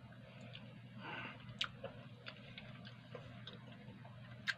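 A person chewing a mouthful of homemade shawarma, with soft wet mouth clicks scattered throughout and two sharper clicks, one about a second and a half in and one near the end. A faint steady low hum runs underneath.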